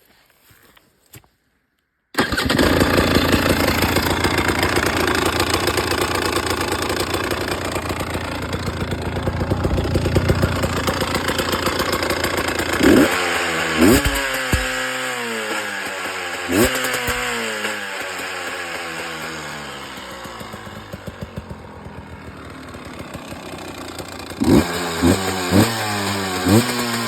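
2018 Husqvarna TE 300 TPI two-stroke single-cylinder engine starting abruptly about two seconds in and running at a fast idle. It is then blipped several times with quick rises and falls in revs, settling to a lower idle between blips. This is the bad engine sound, of unknown cause, that the owner is showing.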